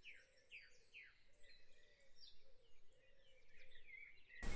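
Faint bird chirping, a quick run of short falling notes, over near silence.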